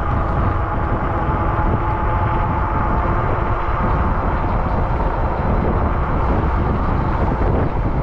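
Wind rushing over the microphone and road noise from a bicycle riding along a city street, steady throughout, with a few faint steady whining tones underneath.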